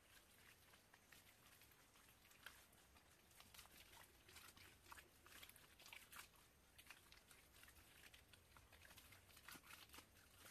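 Faint, irregular crackling and small wet clicks of hands smearing mud plaster onto a hut wall.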